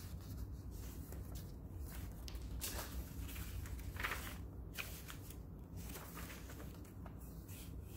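Paper pages of a handmade junk journal being turned by hand: paper rustling and swishing in irregular strokes, the loudest about four seconds in.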